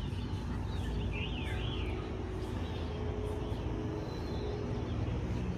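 Outdoor ambience: a steady low rumble with a few bird chirps in the first two seconds.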